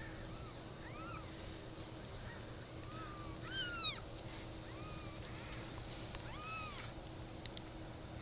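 Newborn Japanese Bobtail kittens mewing: about six short, high-pitched mews that rise and fall in pitch, the loudest about three and a half seconds in.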